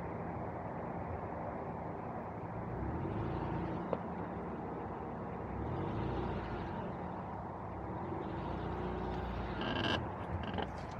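Car engine running at low revs as the 4WD crawls down a rocky dirt track, with the rumble of tyres rolling over stones. A brief high squeal near the end is the loudest moment.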